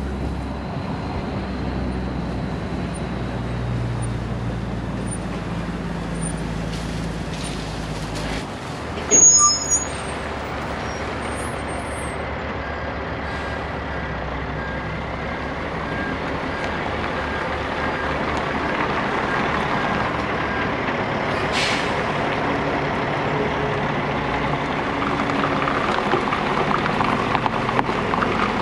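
Kenworth T800 semi truck's diesel engine running as it pulls a loaded lowboy trailer. The engine note changes about eight seconds in, with a brief loud burst just after, and the engine gets gradually louder toward the end.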